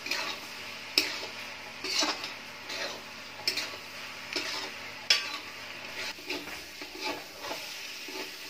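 Metal spatula stirring and scraping a spiced masala frying on high flame in a large aluminium kadhai. A steady sizzle runs underneath, with a sharp scrape or clank of metal on the pan about once a second, lighter in the last few seconds.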